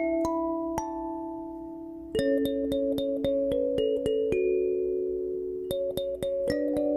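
Background music: soft keyboard chords held under a melody of short, separate notes, with the chord changing about two seconds in and again near the end.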